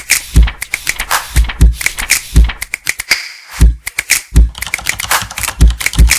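Intro sound effect for a typed-on logo: rapid typewriter-style key clicks over deep, unevenly spaced bass thumps.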